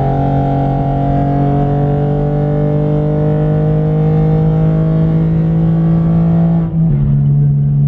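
Car engine pulling under acceleration, its pitch climbing slowly and steadily, then dropping suddenly near the end as it shifts up and settles into a steady drone.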